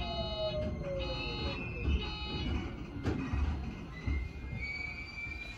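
Shizuoka Railway electric train running with a low rumble, its motor whine falling steadily in pitch over the first couple of seconds as it slows toward a stop. A fainter high whine rises near the end.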